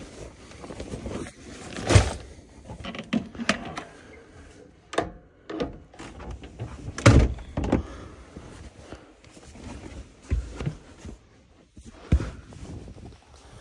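Interior fittings of a Volkswagen Westfalia camper van being handled: a string of knocks and thunks from the overhead cabinet and the bench seat as they are moved, with rustling between. The loudest thunks come about two and seven seconds in.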